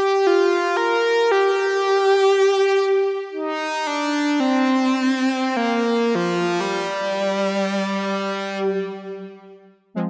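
Sequential Take 5 five-voice analog synthesizer playing a slow progression of held chords on a bright, sustained patch with a slight vibrato. The chords change every second or so and fade away near the end.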